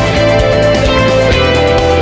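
Instrumental background music with sustained tones that shift from note to note.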